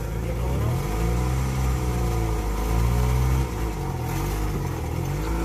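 Engine of a lifted 4x4 rock crawler, its revs rising and falling several times as the rig climbs over rock ledges.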